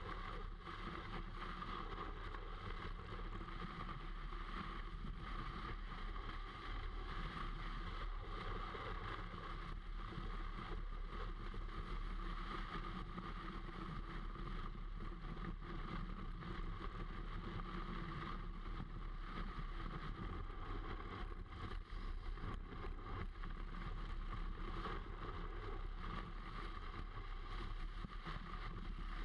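Snowboard sliding over packed snow, heard through a camera mounted on the board itself: a steady scraping hiss of the base and edges on the snow, with wind rushing over the microphone.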